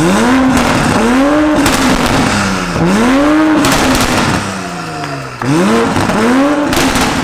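2020 Toyota Supra's turbocharged 3.0-litre inline-six free-revved in quick blips through a catless downpipe with no tune. Each rev climbs fast and falls back, and a sharp crackle of burble comes as the throttle closes, three times. Very loud exhaust.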